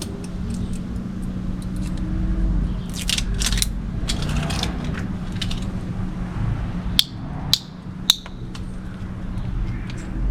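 Handling noise from filling a smoke tester with baby oil: plastic rustling and scraping, then three sharp clicks about seven to eight seconds in, over a steady low hum.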